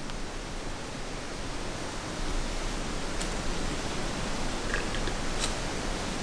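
Steady rushing noise, rising a little about two seconds in, with a few faint clicks in the second half.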